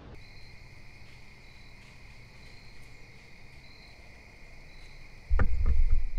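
Crickets trilling steadily in the woods, with a higher chirp repeating about once a second. About five seconds in, a loud low rumble on the microphone comes in over them.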